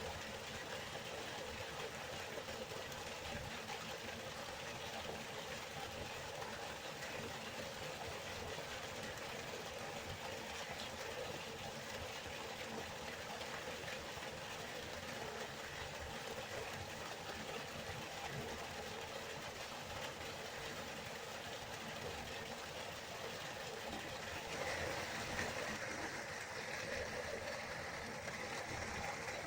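River water flowing, a steady rushing noise. About 25 seconds in, the sound shifts and gains a brighter hiss.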